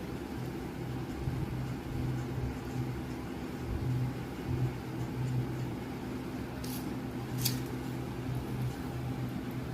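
A steady low mechanical hum, with two brief sharp clicks a little after the middle.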